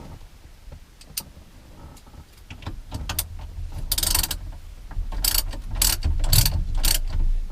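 Socket ratchet tightening the steering wheel retaining nut. There are a few faint clicks at first, then from about halfway through come short ratcheting strokes about twice a second.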